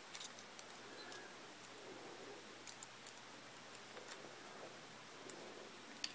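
Faint, scattered clicks and ticks of small metal parts being handled: a nut and bolt being fitted and tightened on the perforated steel strips of a toy construction set, over a low background hiss.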